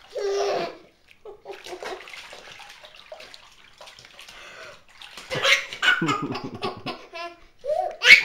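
Water splashing and sloshing in a plastic Tummy Tub baby bath bucket as hands scoop water over a baby. A short vocal sound comes at the start, and laughs and squeals from the baby come with heavier splashing in the last few seconds.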